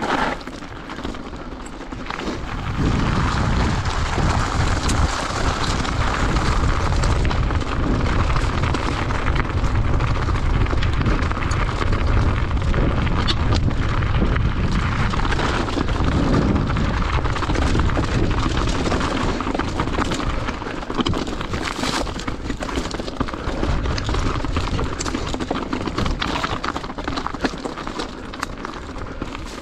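Mountain bike riding down a singletrack trail, heard from a camera on the bike or rider: a steady wind rumble on the microphone, with many sharp clicks and knocks as the bike goes over rough ground. The noise gets louder about three seconds in, as the bike picks up speed.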